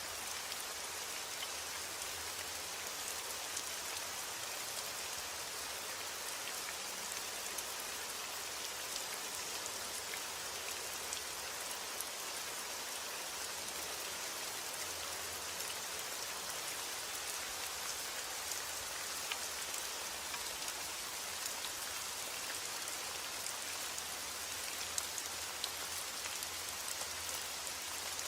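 Heavy rain falling steadily: an even hiss thick with the patter of single drops, with no thunder.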